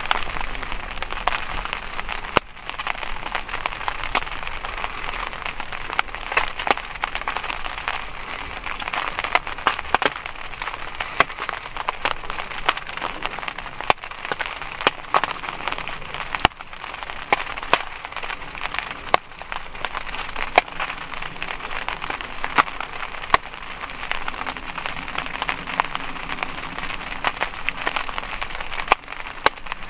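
Steady rain falling on a surface, a continuous patter with many sharp individual drop ticks.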